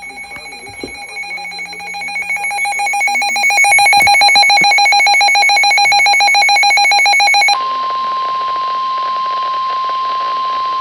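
Weather radio alert alarm: rapid pulsed electronic beeping that grows louder over the first few seconds. About seven and a half seconds in it switches to a steady single-pitch tone, the 1050 Hz NOAA Weather Radio warning alarm tone that announces a new severe thunderstorm warning.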